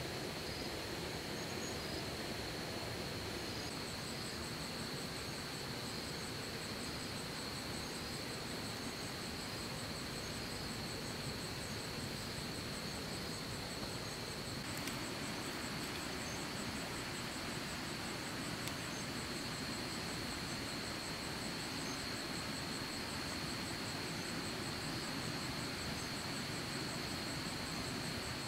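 Insects trilling steadily: one continuous high note, joined about four seconds in by a second, higher, rapidly pulsing call, over a steady background hiss.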